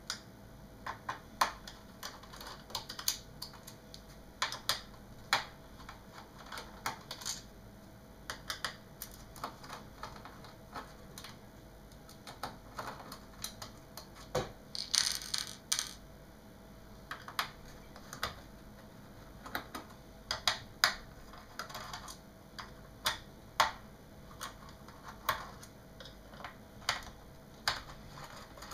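Hand screwdriver turning out small screws from a monitor's metal stand bracket: irregular light clicks and ticks of the tool on the screws and bracket, with a brief scraping rustle about halfway through.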